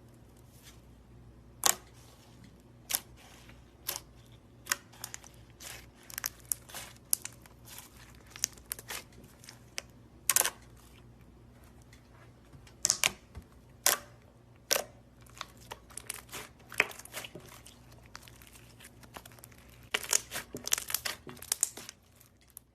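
Slime being squeezed and stretched by hand, giving irregular sharp pops and crackles, with a dense run of crackling near the end, over a faint steady low hum.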